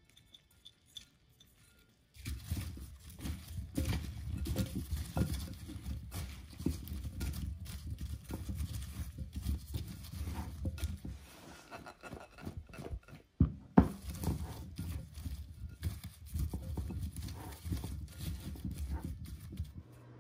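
Cauliflower florets being tossed by hand in a glass mixing bowl: irregular rustling and knocking of florets against each other and the glass, starting about two seconds in. It breaks off briefly about two-thirds through, with one sharp knock, then carries on.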